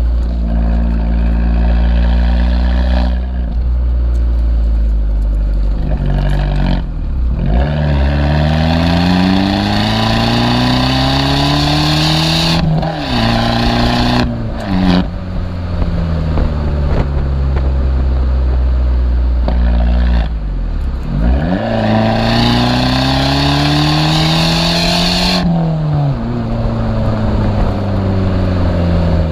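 Abarth 595's turbocharged 1.4 four-cylinder breathing through a Monza exhaust with a 200-cell sports cat, pulling hard twice. Each time the engine note rises steeply through the revs and then drops sharply at a gear change, with steady running at lower revs in between.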